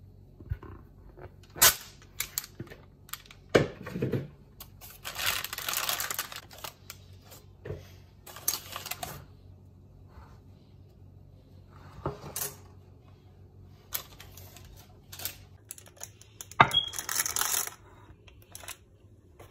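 Kitchen handling noises: scattered clicks and light knocks of utensils and a pan, with a few short scraping stretches. The longest scrape comes about five seconds in and lasts over a second.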